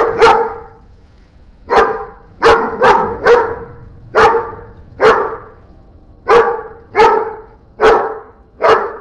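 A dog barking, generated as a sound effect by Meta's Audiobox AI: about a dozen single barks at irregular intervals, each cut short with a brief fading tail.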